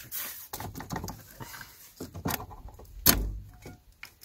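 Clicks, taps and small rattles of a pickup truck's brake master cylinder being handled and worked loose by hand, with one sharper knock about three seconds in.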